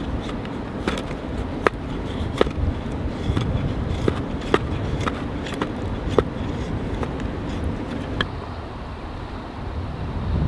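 A knife splitting thin kindling strips off a softwood board, giving a sharp crack every second or two as each strip splits away, over a steady low rumble.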